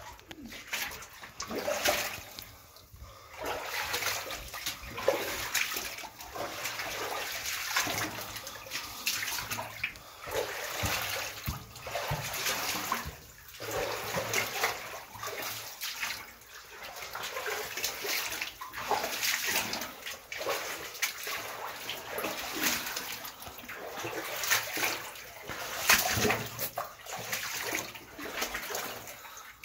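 Footsteps splashing and sloshing through shallow water, in uneven surges about a second apart.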